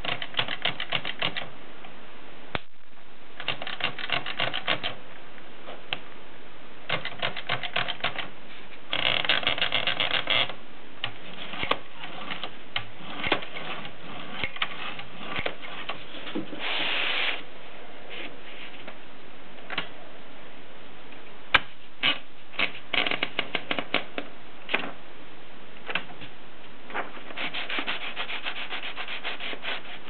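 Junior Brillant portable typewriter being worked by hand: repeated bursts of rapid ratcheting clicks as the platen is turned and the carriage lever used, with a few single sharp clacks and one short sliding rub about halfway through.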